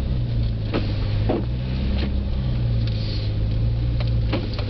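Car engine and road noise heard from inside the cabin while driving slowly through snow: a steady low hum, with a few light knocks scattered through it.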